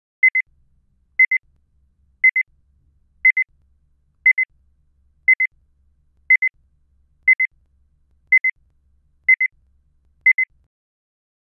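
Electronic double beeps, like a digital alarm clock, repeating about once a second eleven times, then stopping.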